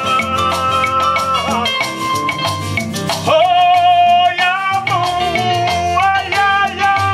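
Upbeat band music with a steady beat and shaker-like percussion under long held melodic notes, getting louder and fuller about three seconds in.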